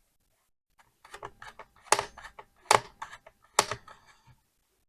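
A series of sharp plastic clicks and light ticks from work on the ThinkPad T450's bottom cover, coming after about a second of quiet. The three loudest clicks fall about two, two and three-quarter, and three and a half seconds in.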